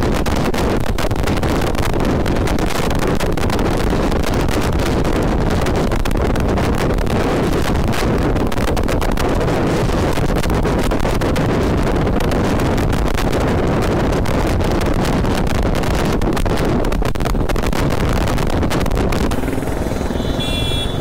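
Heavy wind rushing and buffeting over a motorcycle rider's microphone at speed, with the Royal Enfield Hunter 350's engine and road noise buried underneath. Near the end the rush eases a little and a short high beep sounds.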